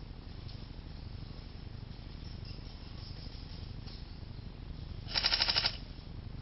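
A short burst of full-auto fire from an airsoft electric gun, a rapid rattle of about twenty shots a second lasting about half a second, coming about five seconds in over faint outdoor background noise.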